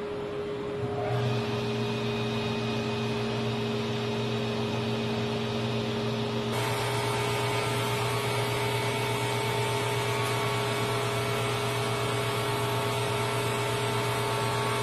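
Shop Fox W1812 planer moulder switched on about a second in and running steadily as it makes a wood moulding. Its sound turns brighter and busier about six and a half seconds in.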